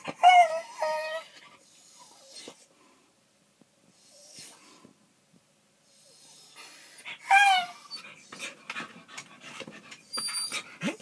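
Dog whining in high, falling cries at the start and again about seven seconds in, with softer noises between: the dog is agitated at the animal climbing the window screen.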